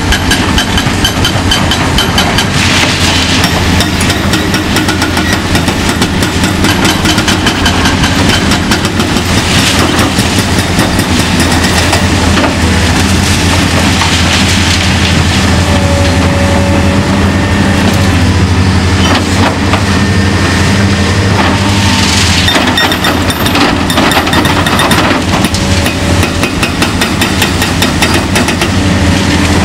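Epiroc HB 4100 hydraulic hammer on a 50-ton Hitachi ZX470LC-5 excavator pounding concrete in a fast, steady run of blows, over the steady drone of the excavator's diesel engine.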